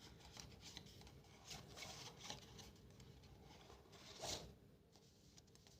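Faint rustling and light clicks of the watch's accessories and papers being handled and packed back into their box, with a slightly louder rustle about four seconds in.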